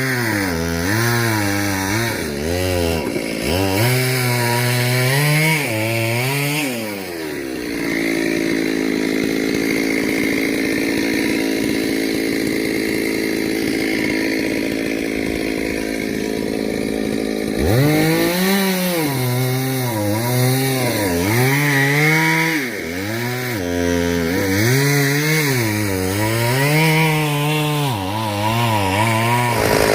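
Two-stroke chainsaw engine revving up and down about once a second. About eight seconds in it falls to a steady lower speed, then revs up sharply again about eighteen seconds in and goes back to rising and falling.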